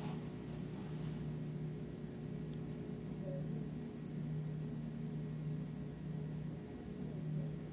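A steady low machine hum with a faint hiss.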